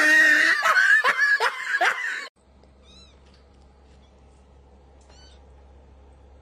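A French bulldog's high-pitched whining and yowling, several cries falling in pitch, which cut off sharply about two seconds in. After that comes a faint low hum with two brief, faint high chirps.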